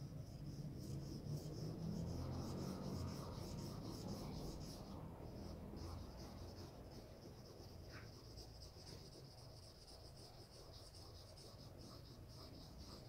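Felt-tip marker scratching across paper in quick repeated strokes as long hatching lines are drawn, with a short pause about five seconds in. A faint low rumble sits underneath, strongest in the first few seconds.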